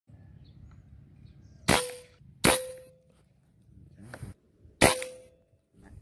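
Three sharp air-rifle shots, the first two less than a second apart and the third about two seconds later, each leaving a short ringing tone. A softer knock comes shortly before the third shot.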